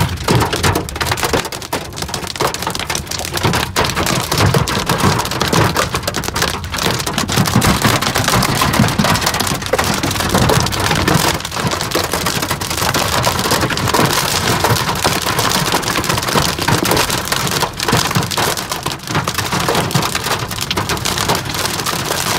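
Heavy storm rain and hail pelting a car's roof and windshield, heard from inside the cabin as a dense, steady patter with many small sharp hits.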